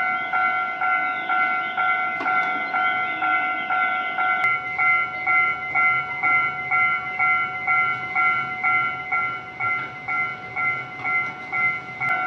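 Miniature Japanese railroad crossing's warning bell ringing "kan-kan", a pulsing chime about twice a second. The lowest of its tones drops out about four seconds in while the ringing carries on.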